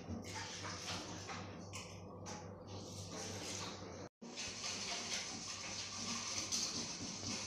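Faint steady hiss with a low hum underneath, like background room noise, cut by a split-second dropout about four seconds in.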